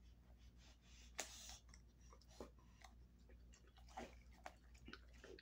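Faint, irregular clicks and crunches of a large dog gnawing a beef cheek roll, over a low hum. The sharpest snap comes about a second in.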